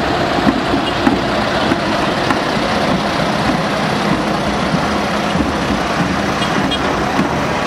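Diesel engines of farm tractors running steadily as the tractors drive slowly past at close range.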